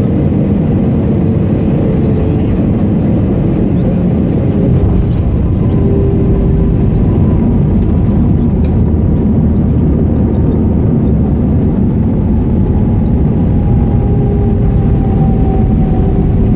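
Cabin noise inside an Airbus A320 with CFM engines: a steady, loud rumble of engine and airflow. Thin engine whines drift slowly down in pitch through the second half.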